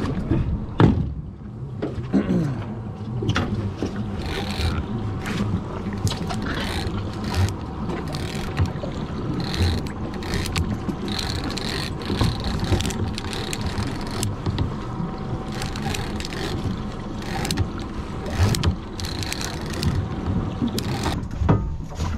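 Outboard motors running steadily, with irregular knocks and rubbing from handling a heavy rod and big-game lever-drag reel during the fight with the fish.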